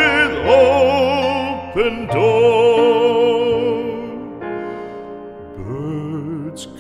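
Classical art song: a singer holds long notes with wide vibrato over piano accompaniment, finishing the last line, and the voice falls away at about four seconds while the piano carries on.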